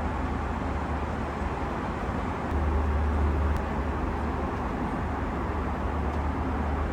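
Steady airliner cabin noise in flight: a deep engine and airflow rumble with an even rush of air above it, swelling slightly about two and a half seconds in.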